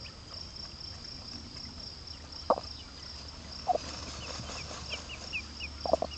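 Insects chirring in a steady, high, pulsing trill, with short high chirps in the second half. A hen gives a few short, low clucks: one about two and a half seconds in, one near the middle, and two close together near the end.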